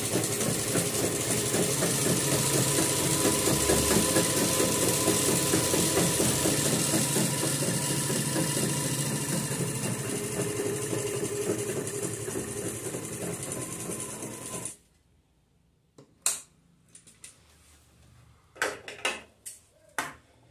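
Sewing machine running steadily as it stitches two layers of cloth together, stopping suddenly about 15 seconds in. Then a few sharp, short snips and clicks of scissors at the cloth.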